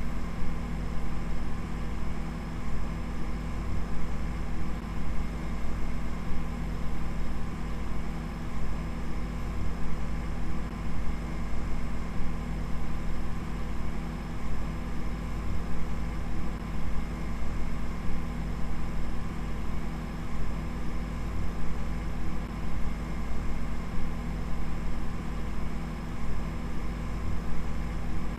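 A steady low drone, mixed with a hiss-like noise, that does not change at all.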